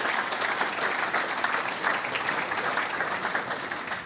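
Audience applauding, a dense, steady clatter of many hands clapping that eases off at the very end.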